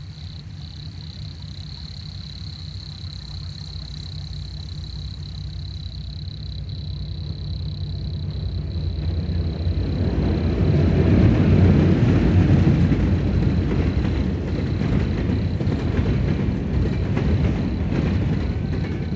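Vehicle driving on a road: a steady low engine and road rumble that swells to its loudest about ten to thirteen seconds in, then eases off a little, with a thin steady high whine over it.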